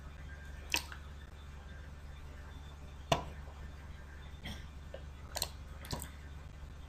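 Computer mouse button clicks, about six of them spaced irregularly, two in quick succession near the end, over a steady low electrical hum.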